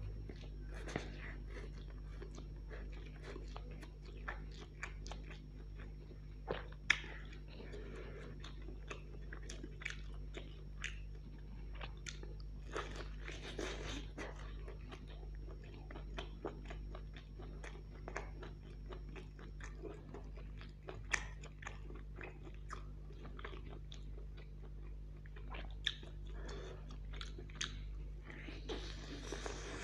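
Close-miked eating of chow mein noodles and fried chicken drumsticks: chewing, biting and crunching, with many wet mouth clicks throughout. Under it runs a steady low hum.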